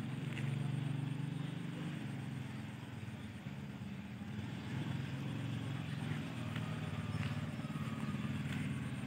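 Steady low engine drone.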